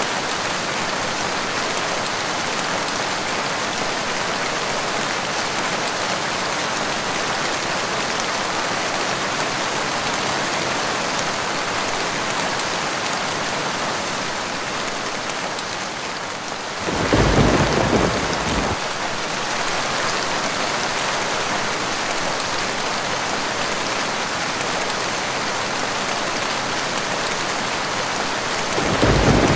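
Steady rain falling, with a deep rumble of thunder about seventeen seconds in that lasts nearly two seconds, and another thunder rumble starting just before the end.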